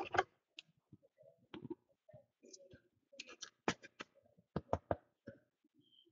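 Faint, scattered clicks and taps, with a cluster of sharper ones a little past the middle.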